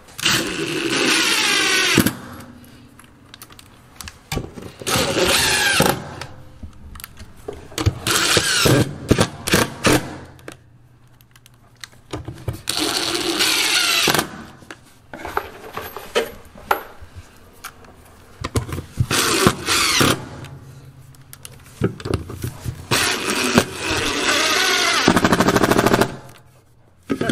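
Cordless impact driver hammering screws through a metal floor-drain flange into the plywood subfloor. It runs in about six short bursts of a second or two each, with pauses and small clicks between them.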